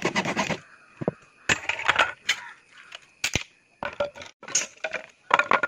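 Areca palm wood pole cracking and splintering at a hacksaw cut as it is worked by hand, in several short, irregular bursts.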